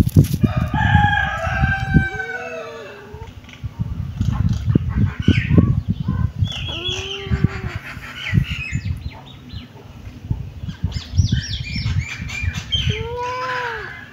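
Animal calls: short arched cries and bursts of high chirps, over frequent thumps and rustling.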